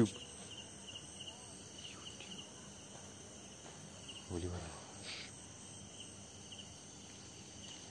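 Crickets chirping in a steady rhythm, a high chirp repeated about three times a second. A person's voice is heard briefly about halfway through.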